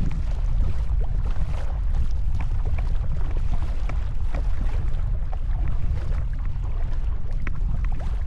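Strong wind rumbling on the microphone, with small scattered splashes and drips of water from a folding canoe being paddled into a headwind.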